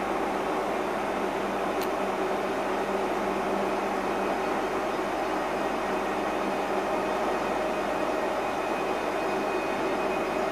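Steady hum and whir of Pesa Elf electric multiple units standing at a platform, their onboard equipment running, while one unit creeps in slowly to couple. A single short click about two seconds in.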